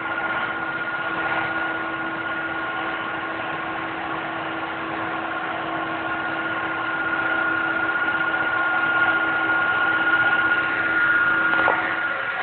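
Jet engines of a twin-engine wide-body airliner running at taxi idle: a steady whine over a low hum, heard through terminal window glass. It grows somewhat louder in the second half as the aircraft taxis closer.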